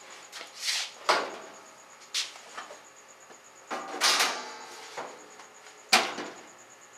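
Stainless steel wall cabinet doors being opened and plastic jugs and bottles set down on its metal shelves: a handful of separate sharp knocks and clunks with short rustles between them.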